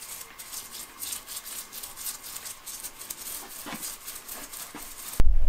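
Soft, faint wet patter and brushing as a brush spreads a liquid finish over carved wood, over a faint steady hum. Near the end it cuts abruptly to a loud low rumble.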